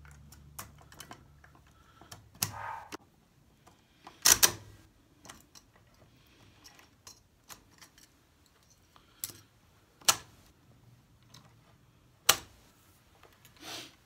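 Metallic clicks and clacks of cartridges being pressed one by one into a Mauser C96 pistol's fixed magazine from the top, with a few sharper snaps of the action.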